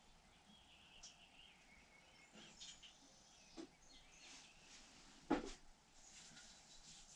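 Quiet handling of transmission clutch plates being oiled: a few light clicks and one sharp knock about five seconds in. Faint high chirps sound in the first couple of seconds.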